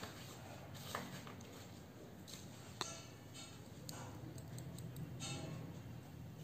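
A metal spoon clicking lightly a few times while it sprinkles spice powder over a plate of chaat; the sharpest click comes near the middle.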